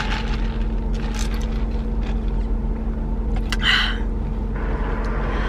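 Steady low hum of a car heard from inside the cabin, with a short sip through a plastic straw about three and a half seconds in.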